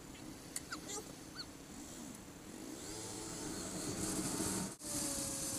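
Motorcycle engine running, its pitch rising and falling as it is revved, growing gradually louder before cutting off abruptly near the end.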